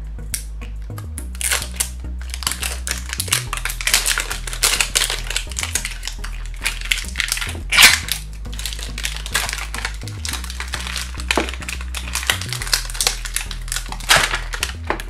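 Plastic wrapper crinkling and tearing as it is peeled off a toy's plastic flowerpot container, with many sharp crackles and the loudest rip about halfway through. Quiet background music with low notes runs underneath.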